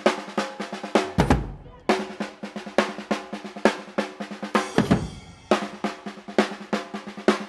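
A street marching band's drum section of snare drums and bass drums playing a fast, driving pattern. It comes in short phrases, each closed by a deep bass drum boom: one about a second in, another near five seconds.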